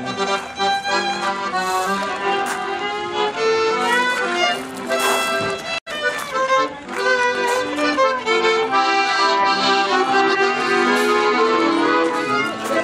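Accordion and violin playing a tune together live, the accordion carrying the melody. The sound cuts out for an instant about halfway through.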